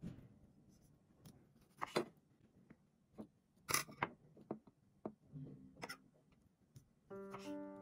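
A knife cutting through a small cucumber, and cucumber slices and cherry tomatoes set down on a ceramic plate: scattered soft taps with a few sharper clicks. Piano music comes in near the end.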